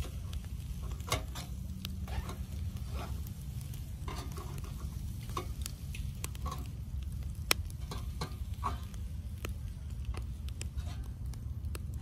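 Lamb liver, heart and kidney kebabs on skewers sizzling over a charcoal grill, with scattered pops and crackles, the sharpest about seven and a half seconds in. A steady low rumble runs underneath.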